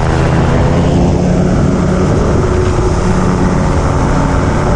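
Autogyro's engine and propeller running steadily, heard from on board: an even drone with a low rumble beneath it.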